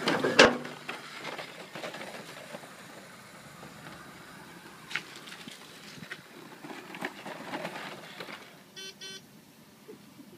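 Small mobility scooter driving over concrete: a loud clattering thump about half a second in, then rattling and tyre noise as it rolls along, with two short beeps near the end.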